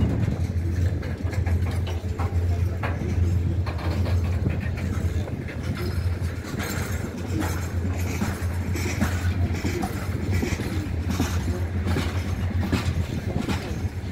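Broad-gauge freight train of open gondola wagons rolling past at a level crossing: a steady low rumble with the wheels clattering irregularly over the rails.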